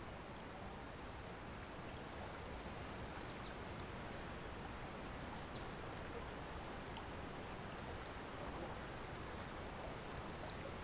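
Steady outdoor background noise, an even rushing hiss, with a few faint, brief high bird chirps scattered through it.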